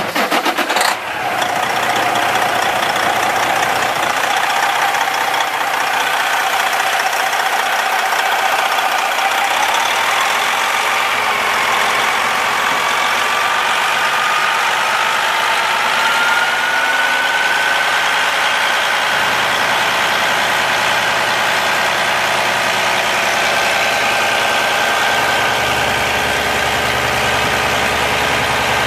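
International DT466 diesel engine of a 2009 Sterling L9500 dump truck idling with a diesel clatter, just after starting. It settles from a rough first second into a steady idle, with a whine that rises slowly in pitch partway through.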